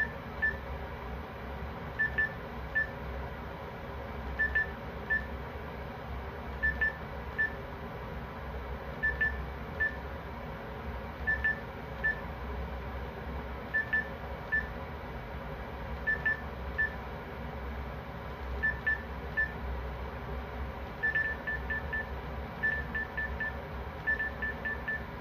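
Electronic alarm beeping: short high beeps in a pattern of a quick double beep and then a single beep, repeating about every two and a half seconds over a steady low hum. From about 21 seconds in, the beeps come faster, in runs of three or four.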